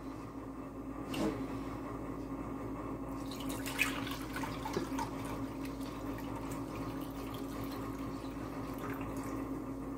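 Home-canned beef stock poured from a jar into a glass measuring cup, a liquid trickle with a few light clinks of glass, over a steady low hum.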